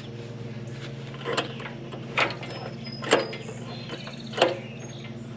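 Harbor Freight Predator small engine being pulled over by its recoil starter, stopping short with a clunk each time as it locks up, four times about a second apart, over a steady low hum. The engine is seized by water in the cylinder.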